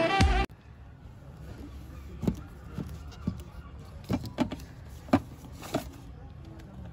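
Music cuts off half a second in. Then plastic game and DVD cases give a few sharp clicks and taps, about seven in all, as fingers flick along their spines, over a low steady hum.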